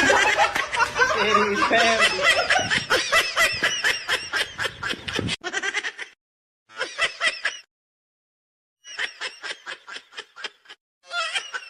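Someone laughing hard in quick, repeated bursts, several per second. The laughter thins into separate short runs partway through, with a second-long gap of silence before it resumes.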